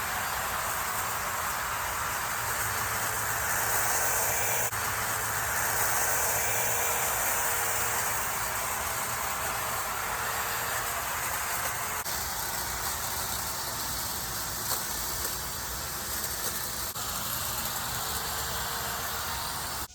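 A machine running steadily, a loud even noise with a faint steady hum, that cuts off sharply at the end.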